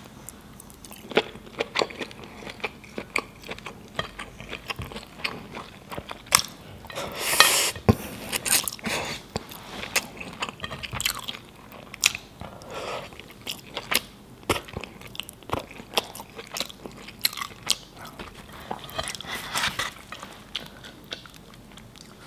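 Close-miked eating: mutton biryani chewed with a run of irregular wet mouth clicks and smacks, with a louder rustling stretch about a third of the way in.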